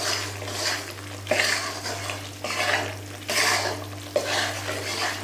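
Metal spatula stirring and scraping wheat flour through hot ghee in a metal kadhai, a rough scrape roughly once a second, with the ghee sizzling. A steady low hum runs underneath.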